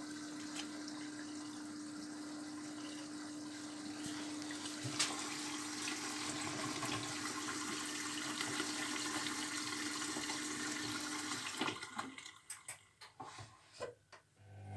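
Zerowatt/Hoover Performa 1000 washing machine filling with water at the start of a wash: a steady rush of water with a constant hum. It shuts off about three-quarters of the way through, leaving a few faint clicks and drips.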